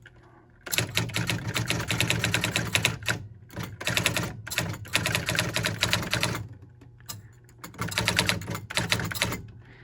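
Sears Electronic Communicator 2 daisy wheel electronic typewriter printing as it is typed on: rapid runs of clattering strikes, broken by a few short pauses.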